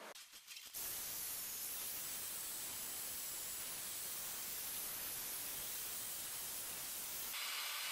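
Ryobi PE1600 single-action rotary polisher with a foam pad running at top speed, pressed against a car's painted bonnet: a steady hissing whir that starts about a second in, after a few faint clicks.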